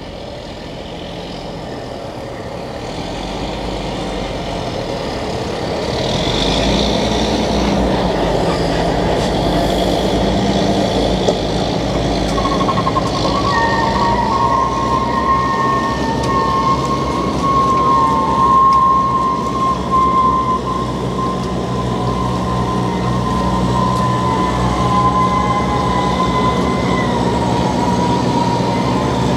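Steady engine noise that builds over the first few seconds. About twelve seconds in, a high, slightly wavering whine joins it and keeps on.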